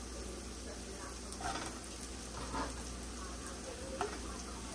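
Butter and onions sizzling steadily in a saucepan, with a few light knocks of a stirring utensil against the pan.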